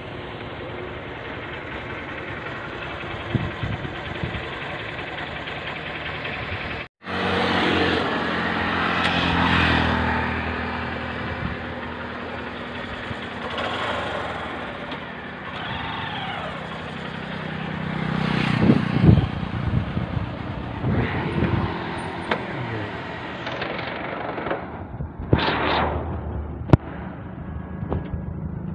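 Moving vehicle on the road: a steady engine hum under road and wind noise, with a brief high-pitched tone near the end. The sound cuts out for an instant about a quarter of the way in.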